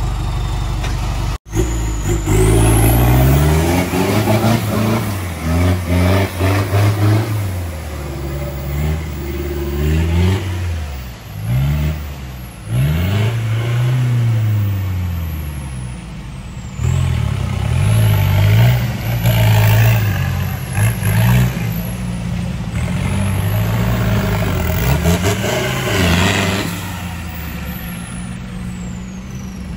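Off-road 4x4 engine revving again and again, its pitch climbing and dropping every second or two under heavy throttle.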